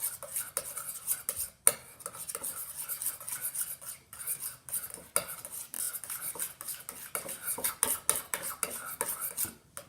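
A utensil stirring body wash in a bowl, clicking and scraping against the sides in a quick, uneven run of strokes as the mix thickens toward slime.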